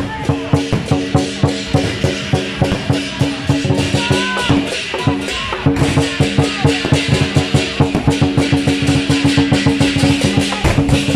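Taiwanese temple procession music: a fast, even drum and percussion beat of about five hits a second over steady held tones.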